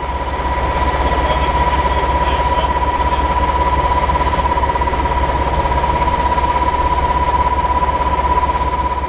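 Diesel locomotive engine running at a steady speed: a deep low note with a steady high whine over it, the level fluttering quickly.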